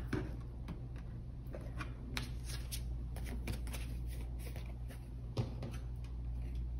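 A deck of cards being shuffled by hand: a run of irregular soft flicks and slaps of card on card, over a low steady hum.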